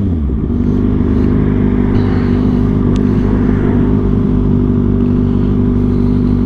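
Kawasaki ZX-6R's inline-four engine running at a steady speed, described as loud.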